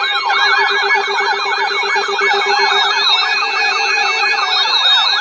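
Weather radio receivers sounding their electronic siren alarm on an incoming weather bulletin: several overlapping fast rising-and-falling whoops over a steady lower tone.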